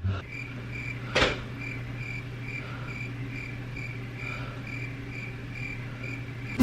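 Cricket chirping in a steady rhythm, about two and a half chirps a second, over a low steady hum, with a single knock about a second in.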